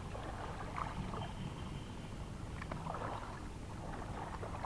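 Seawater lapping and splashing at the rocky shore, with irregular soft splashes over a steady low rumble.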